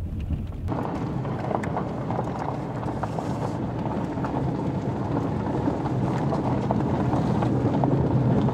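Car driving, heard from inside the cabin: a steady rush of road and wind noise over a low engine drone, which jumps louder about a second in.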